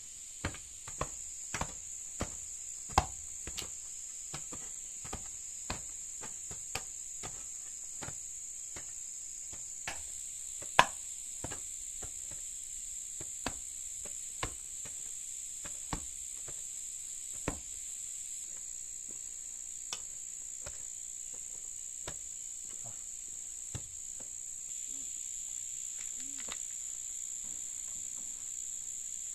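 Hand hoes chopping into soil in irregular strikes, several a second at first, thinning out and stopping about 24 seconds in, over a steady high-pitched insect drone.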